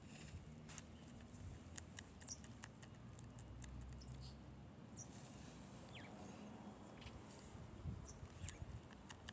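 Guinea pig biting and chewing a broccoli leaf: faint, scattered crisp crunching clicks.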